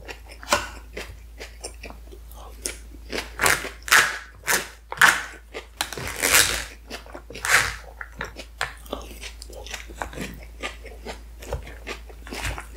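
Close-miked chewing of a mouthful of shawarma platter food: irregular wet mouth clicks, smacks and crunches, busiest in the middle.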